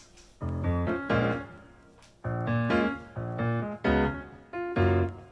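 Background piano music played in short phrases of chords, each about a second long, with brief quieter gaps between them.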